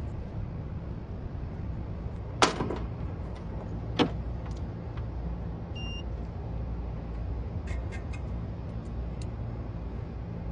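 Steady low background drone with two sharp clicks about a second and a half apart as multimeter test leads are put to a rooftop unit's compressor terminals, and a short faint beep about six seconds in.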